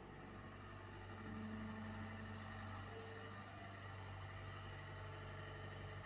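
Komatsu PC75US mini excavator's diesel engine running steadily under hydraulic load as the machine swings back from the dump truck, a little louder from about a second in.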